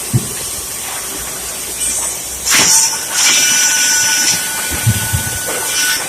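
Bandsaw cutting a wooden board, a steady hiss of the blade through the wood. From about three seconds in, a steady whining tone rides over it, with a few low knocks.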